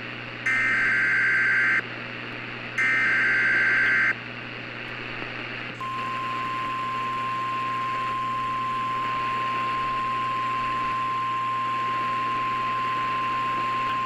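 Emergency Alert System SAME header data bursts: two harsh warbling bursts, each about a second long, a second apart, over a steady radio hiss. About six seconds in, a single steady-pitched 1050 Hz NOAA Weather Radio warning alarm tone begins and holds for about eight seconds.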